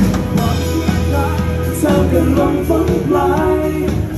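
Live band playing a Thai pop song with a singer, over a steady bass line.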